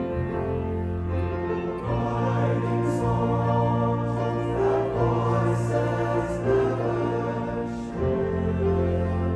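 Mixed choir singing sustained chords in harmony, accompanied by piano and bass guitar, with a low bass note changing about every three seconds.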